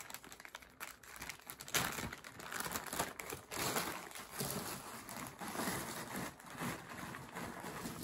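Clear plastic zip bag crinkling as it is opened and handled, with the NovelKey Cream mechanical keyboard switches inside rattling and clicking as they are tipped out onto a desk mat.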